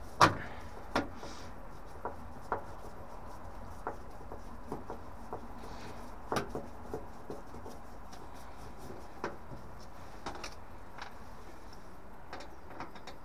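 Irregular light clicks and taps of a screwdriver working the screws on a combi boiler's sheet-metal casing, the sharpest click right at the start.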